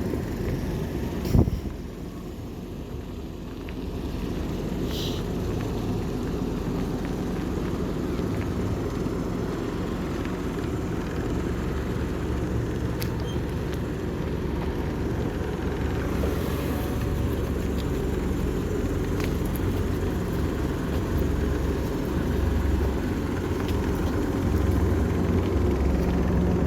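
An engine running steadily with a low rumble, getting slightly louder toward the end, with a single sharp knock about a second in.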